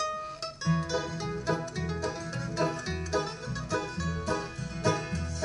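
Acoustic bluegrass band of fiddle, guitar, bass and mandolin playing live: a few plucked lead-in notes, then the whole band comes in about three-quarters of a second in with a steady beat.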